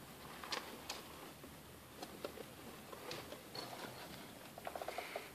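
Pet rats or mice moving in wood-shaving bedding: scattered small clicks and rustles, with a quick run of ticks near the end.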